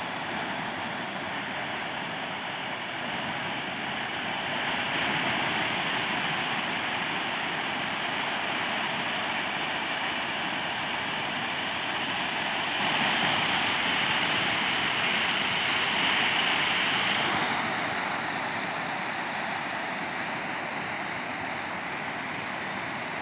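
Rough sea surf breaking and washing onto a rocky shore: a steady rushing that swells louder twice.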